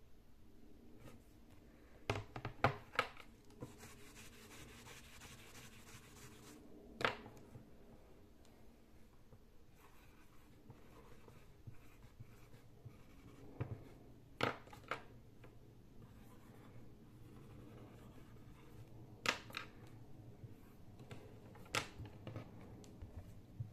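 Faint scratching of a marker writing on a small plastic-framed dry-erase whiteboard, broken by several sharp clicks and knocks as the board and marker are handled.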